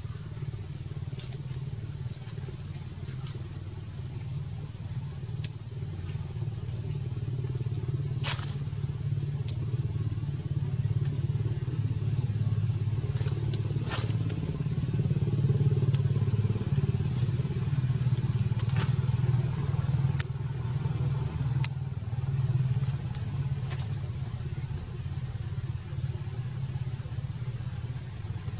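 Low, steady engine drone that grows louder toward the middle and eases off again, with scattered sharp clicks over it.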